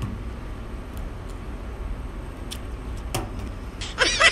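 A raw egg cracked against a concrete bench, one faint crack about three seconds in, over a steady low background rumble. Near the end a loud run of high, squeaky, repeated calls starts.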